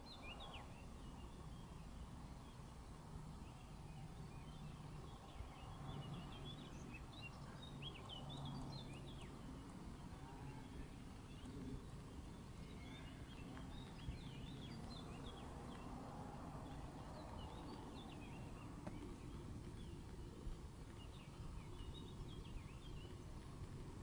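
Faint birdsong: short chirps and twitters from small birds come and go in scattered clusters over a low, steady rumble of outdoor background noise.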